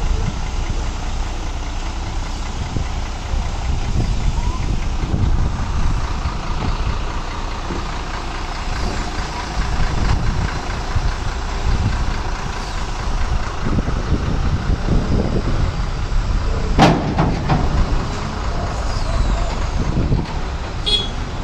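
Heavy diesel truck engine running with a steady low rumble, with one brief loud burst of sound about three-quarters of the way through.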